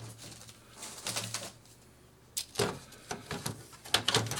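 Plastic clicks and knocks as a mechanical keyboard assembly is set into a Commodore 64C case and snapped into its clips, with a run of sharp irregular clicks in the second half.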